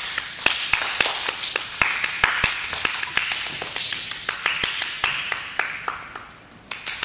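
A small group clapping: sharp, uneven claps, several a second, with a short lull near the end.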